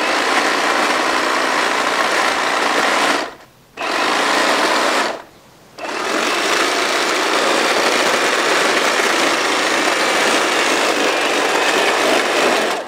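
Powered pole hedge trimmer running with a steady buzz as its blade cuts through poison ivy vines on a tree trunk. It stops twice for about half a second, a few seconds in.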